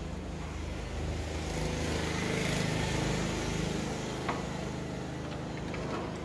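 A motor vehicle's engine running, growing louder about two seconds in and then fading, with a light click about four seconds in.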